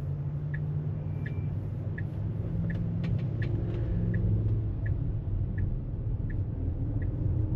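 Low road and tyre rumble inside a Tesla Model X cabin as the car drives, with the turn-signal indicator ticking steadily at about three ticks every two seconds.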